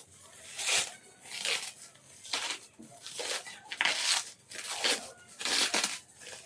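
Packaging of a keyboard box being torn and handled: a series of short rasping tears and rustles, roughly one a second.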